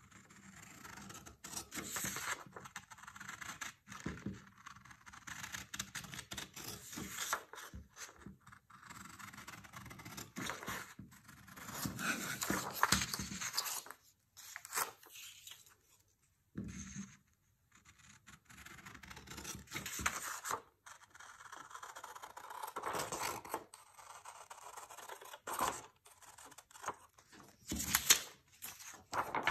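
Scissors cutting through paper along a pattern outline: irregular runs of snips and rasping blade strokes through the sheet, broken by short pauses as the paper is turned.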